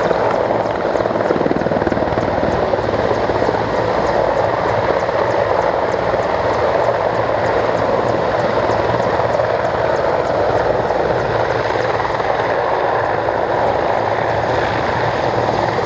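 Czech Air Force Mil helicopters, the Mi-24V Hind and Mi-171 Hip, flying their display: a loud, steady rush of rotor and turbine with a faint regular beat of the blades.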